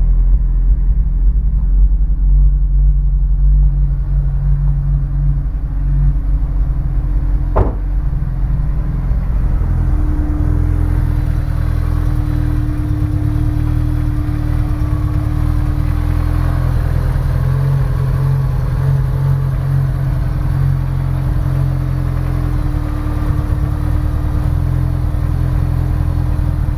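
Honda S2000's four-cylinder engine running at a standstill with the misfire still present after new spark plugs and swapping the cylinder 1 and 4 coils. A single sharp click comes about eight seconds in.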